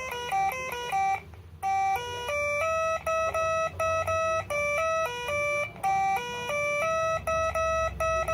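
Telolet horn module playing a song melody: a quick run of clear, steady horn-like notes stepping up and down in pitch, with a short pause about a second in.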